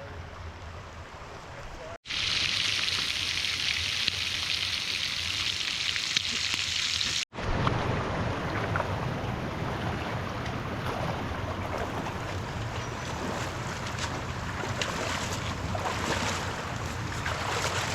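Steady rushing water of a river, heard across several cut-together shots, with some wind on the microphone. The first two seconds are quieter and the rushing gets louder after the first cut.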